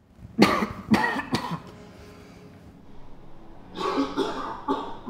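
A man coughing hard in two fits: three harsh coughs in the first second and a half, then another run about four seconds in. It is a heavy smoker's cough.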